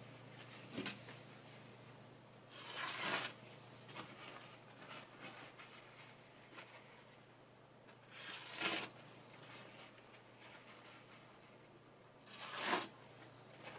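Freshly sharpened chef's knife slicing through a sheet of thin paper three times, each cut a short rasping swish. The slicing tests the edge's sharpness.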